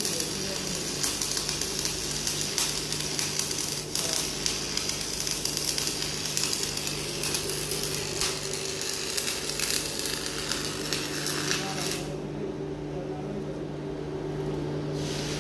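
Stick (shielded metal arc) welding on mild steel pipe: the electrode arc crackles and sizzles steadily, then stops about twelve seconds in as the weld is broken off. A steady low hum continues underneath throughout.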